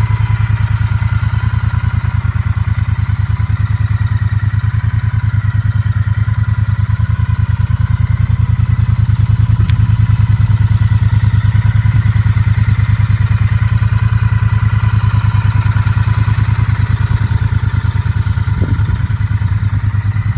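The 1200 cc parallel-twin engine of a 2016 Triumph Bonneville T120 idling steadily, with an even firing pulse.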